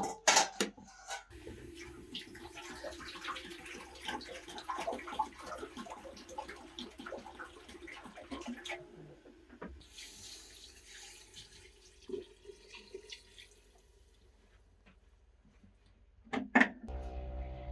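Water pouring and splashing, as into a basin, for about twelve seconds, then fading out. A few sharp clinks come just before it.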